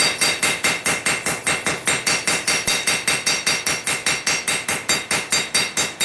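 Hand hammer striking a white-hot billet of stacked bandsaw blades on a steel anvil to forge-weld the layers, about three to four even blows a second, each with a bright ring from the anvil.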